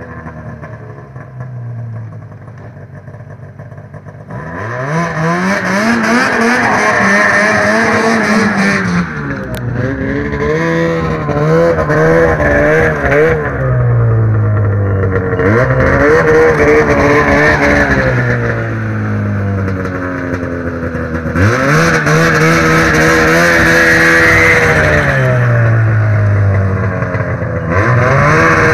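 Arctic Cat Wildcat snowmobile's two-stroke engine idling low for about four seconds, then revving up and down repeatedly, its pitch climbing and falling several times as the sled spins donuts.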